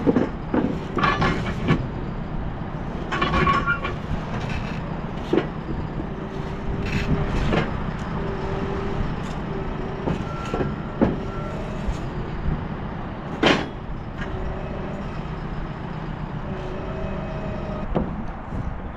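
Building-site work sounds: scattered knocks and clinks of bricks and tools being loaded out, a few with a short ringing tone, over a steady low rumble.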